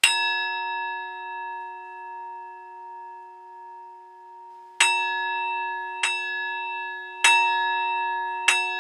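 A bell is struck once and left ringing for nearly five seconds, its tone slowly wavering as it fades. It is then struck four more times about a second and a quarter apart, each ring running into the next.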